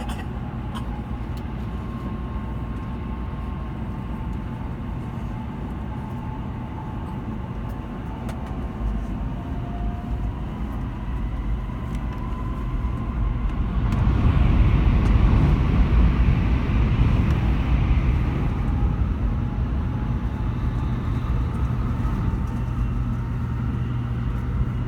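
Shinkansen bullet train running: a steady low rumble with a faint thin whine above it. Just past the middle it swells louder for about five seconds, with added hiss, then settles back.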